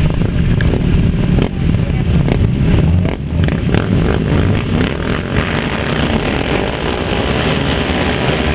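A pack of racing quad bikes (ATVs) with their engines revving loudly on the start line, then pulling away together.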